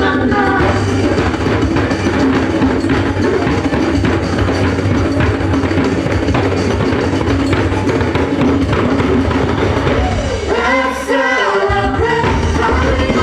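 Latin-American samba-style music with percussion and singing. The bass drops out for about a second just before the end, then comes back in.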